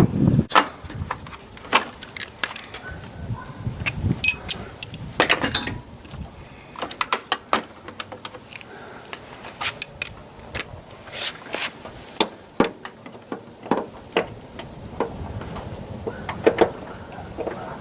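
Hand tools clinking and clicking against metal on a car: irregular sharp clicks and knocks of a socket wrench on an extension being worked, with quick runs of clicks now and then.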